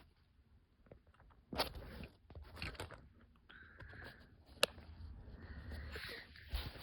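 Crinkling and rustling of packaging being handled, with several sharp clicks, the sharpest a little past halfway, as a model airplane is unboxed.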